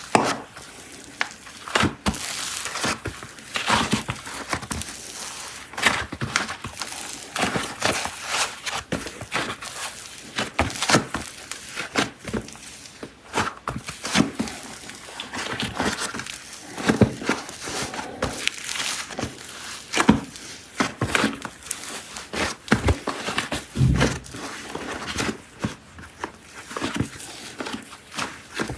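Packaging of air-dry clay being unwrapped: wrappers crinkling and tearing in dense, irregular crackles, with an occasional soft thunk.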